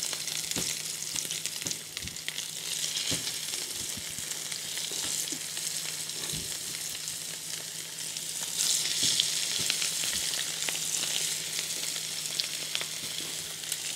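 Flour-dredged sardines frying in olive oil in a frying pan: a steady sizzle with crackling, swelling louder about eight and a half seconds in.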